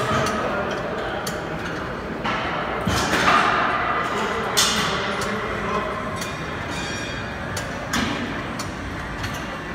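Gym ambience with intermittent metallic clanks and thuds of weights and exercise machines, and several sharp knocks spread through.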